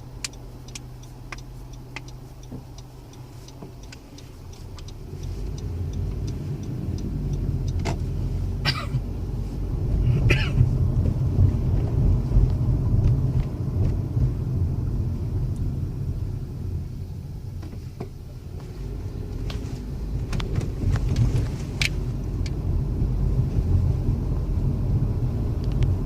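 Cabin noise inside a moving 2016 Honda Civic: road and engine rumble that grows louder about five seconds in as the car picks up speed. Light clicking about twice a second at the start, and a few sharp knocks scattered through the drive.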